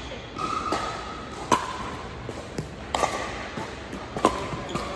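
Pickleball paddles hitting a hard plastic ball in a rally: three sharp pops about a second and a half apart, each with a brief ring, and fainter ticks between them. A short high squeak sounds about half a second in.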